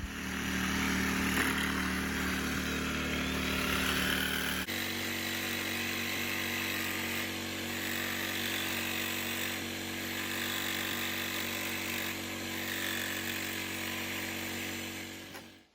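Electric jigsaw cutting a large hole through a roof for a vent pipe, running steadily with a motor drone under the noise of the cut. The sound shifts abruptly about five seconds in and stops sharply at the end.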